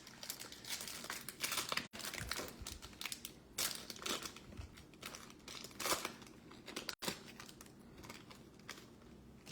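A foil card-pack wrapper being torn open and crinkled by hand, with the cards inside handled; irregular crackles, busiest in the first half and thinning out toward the end.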